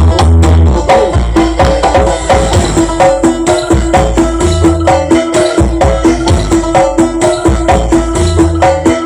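Loud music blasting from the Tebe Audio 'sound horeg' parade sound system, with heavy pulsing bass and a steady percussive beat.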